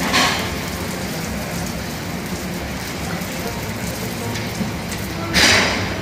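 A raj kachori puri deep-frying in hot oil in an iron kadhai, with a steady sizzle. It swells louder about a quarter second in and again near the end, as hot oil is ladled over the top with a perforated skimmer.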